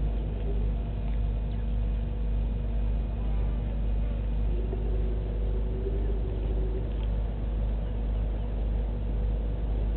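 Steady low rumble with a constant hum, unchanging in level, and a short faint tone about halfway through.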